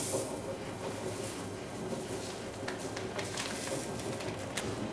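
Salt pouring from a plastic bag into a paper cup, with the bag crinkling and the grains hissing and ticking, over a steady low background hum.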